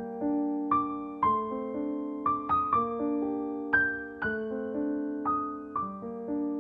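Background piano music: a slow, gentle melody of single struck notes, about two a second, each ringing out over held lower notes.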